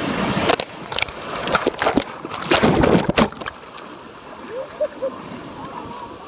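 Breaking ocean surf washing over and around a phone held in the waves: splashing and sharp hits of water against the phone during the first three seconds or so, then a quieter, steady wash of shallow water.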